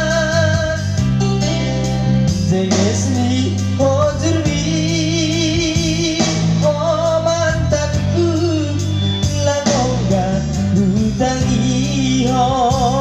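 Music playing: a wavering melody line with strong vibrato over a steady bass.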